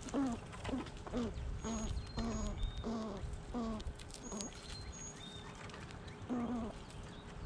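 An animal's short pitched calls, repeated about twice a second for four seconds and then once more near the end, with thin high bird chirps in between.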